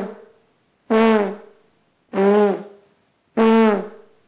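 A trombonist's lips buzzing on their own, with no mouthpiece or instrument: three short buzzes about a second apart, each holding a steady pitch that sags as it dies away, with the tail of an earlier buzz at the start. It is the embouchure buzz made by blowing fast air through tightly closed lips, the first step in getting a sound from a brass instrument.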